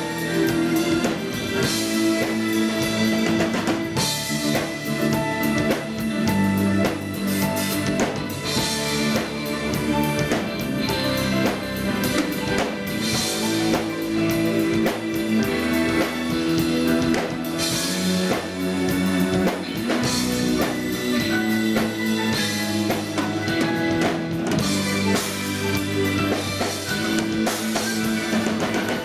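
A live jazz band plays an instrumental tune: a drum kit with cymbal crashes keeps a steady beat under keyboards.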